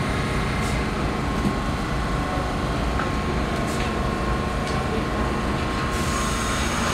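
R46 subway car standing at a station platform: a steady rumble and hum, with a faint steady whine that stops about six seconds in.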